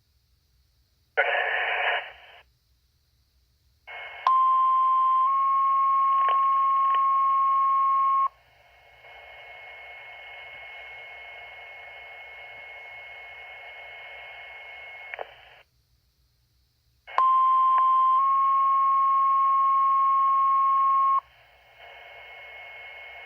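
Fire dispatch two-tone sequential paging tones over a scanner radio, sent twice. Each page is a short lower tone that steps up to a longer, steady higher tone; this is the alert for the platoon B firefighter recall. Open-channel radio hiss fills the gaps, and a brief burst of radio noise comes about a second in.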